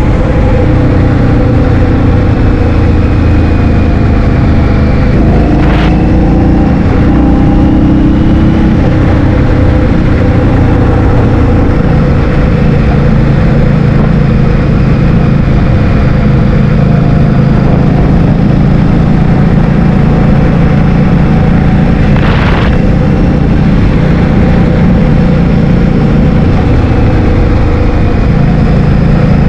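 Heavy wind buffeting the microphone on a moving vehicle, loud and steady, over a running engine whose pitch shifts a little about a quarter of the way in. Two brief sharp knocks, one about six seconds in and one about two-thirds of the way through.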